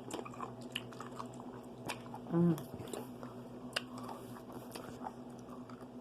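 Close-up chewing of a fresh pickle: scattered wet, crunchy mouth clicks, with a short hummed "mmm" about two and a half seconds in.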